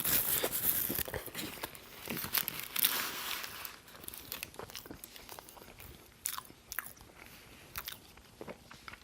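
Close-miked biting into and chewing a Burger King burger: dense crunching for the first few seconds, then softer chewing with scattered wet clicks.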